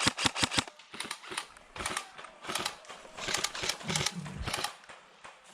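Airsoft gun firing: clusters of sharp, rapid clicks in short, irregular bursts.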